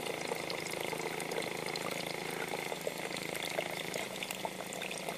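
Thin stream of water running steadily from a clear tube, with a continuous splashing, rushing sound.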